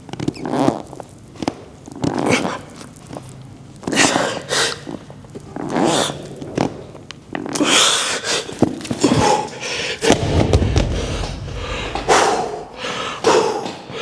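A man breathing hard through reps of a dumbbell shoulder press, with a forceful exhale or grunt every second or two.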